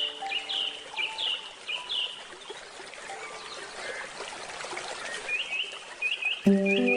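Birds chirping in runs of short hooked notes, once at the start and again near the end, over a steady trickle of flowing water. Faint handpan notes fade out early on, and a handpan chord is struck loudly about six and a half seconds in.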